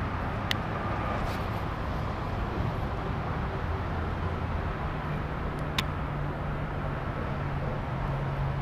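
Steady low rumble of distant road traffic, with a steady engine hum joining about five seconds in. Two sharp ticks, about half a second in and again near six seconds.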